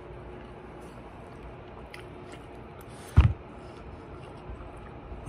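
A person chewing and eating food close to the microphone, with a few small clicks and one short, loud thump about three seconds in.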